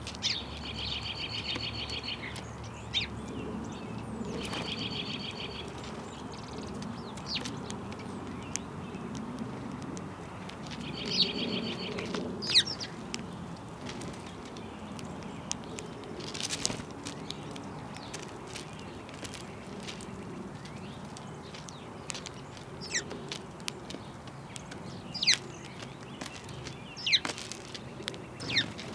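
Small songbirds chirping: a rapid trill of quickly repeated notes three times in the first twelve seconds, then scattered short, sharp chirps and clicks, over a steady low background rumble.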